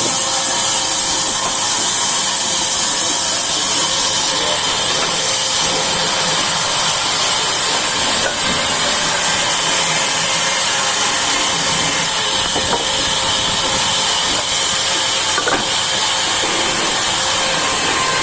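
Sawmill saw running steadily, a continuous high hiss that neither breaks nor changes in level.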